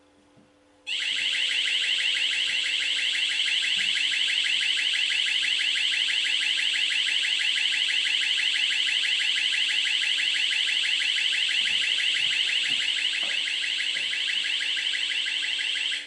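Wireless driveway alarm receiver (1Byone QH-0251) sounding its full loud alarm, set off by its PIR motion sensor: a loud, shrill electronic siren of rapidly repeating sweeping tones that starts about a second in, holds steady, and cuts off suddenly at the end.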